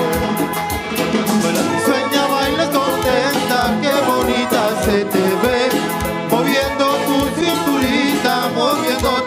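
Live cumbia band playing: timbales, congas and maracas over a steady beat, with a keyboard melody line.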